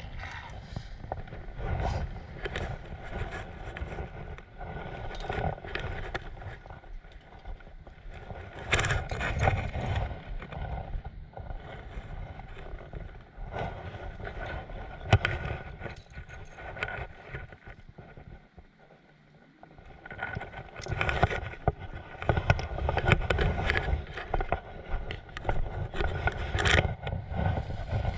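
Uneven outdoor rumble, like wind buffeting the microphone, with irregular knocks and scrapes of handling noise; it drops away briefly a little past halfway.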